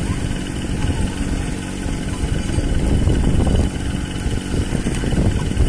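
An engine running steadily: a low rumble with a constant hum.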